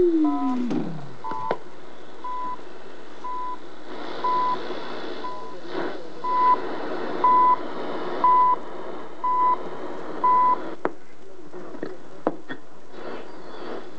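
Shortwave time-signal station heard through a Realistic DX-66 portable radio's speaker: short, steady, high beeps about once a second over static hiss. The beeps stop about ten and a half seconds in, leaving hiss and a few sharp clicks.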